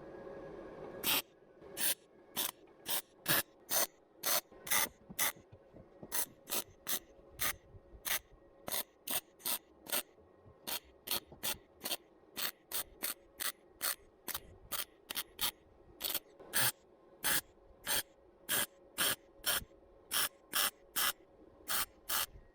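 Electric welder on thin car-body sheet steel, fired in short stitch-welding bursts, each a fraction of a second of crackling hiss, about two a second, starting about a second in. The steel is thin enough that the welding has been burning holes through it even at the lowest setting.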